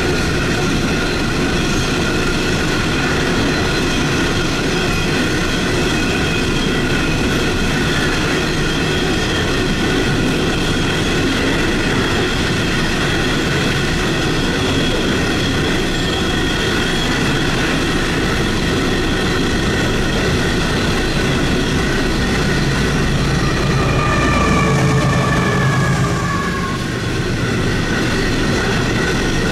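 Ore train wagons rolling past at close range: a steady rumble of steel wheels on rail, with several high, steady squealing tones from the wheels. Near the end one squeal slides down in pitch.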